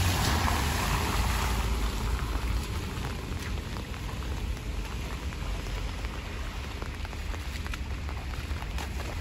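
Rain falling steadily on wet asphalt and a flooded puddle. At the start a car's tyres swish through the standing water, fading within the first second or two, and a few sharp ticks stand out from the rain.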